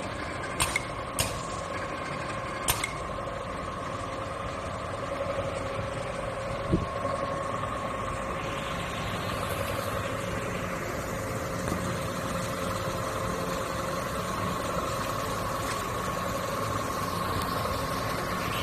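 Rotor pump paste filling machine running: a steady mechanical hum with a steady tone through it. There are a few sharp clicks in the first three seconds and one more about seven seconds in, and a hiss comes up from about halfway through.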